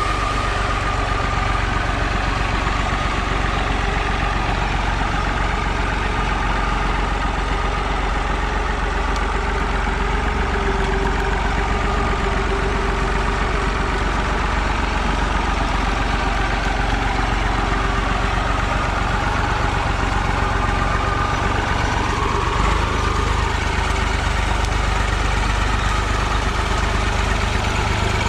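IMT 539 tractor's three-cylinder diesel engine running steadily at low revs while it crawls along a forest track towing an empty trailer, with a single clunk about two-thirds of the way through.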